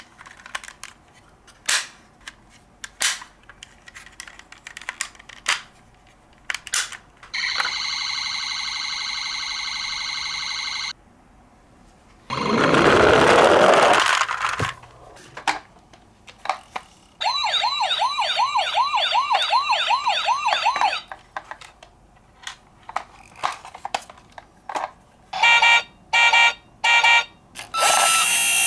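Toy minicar electronic sirens sounding one after another: a steady buzzing tone for about four seconds, later a fast up-and-down wail, and short on-off beeps near the end, with scattered clicks and taps between them. A loud rushing noise lasts about two seconds near the middle.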